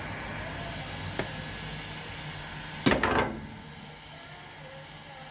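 Hand-work on a vehicle's wiring: a short sharp click about a second in, then a louder sharp clatter near three seconds, over a steady low hum.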